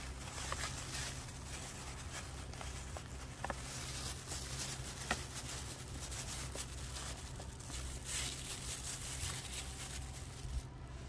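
Close rustling and crinkling of a nylon padded jacket and a plastic bag being handled, with many small crackles and a steady low rumble underneath.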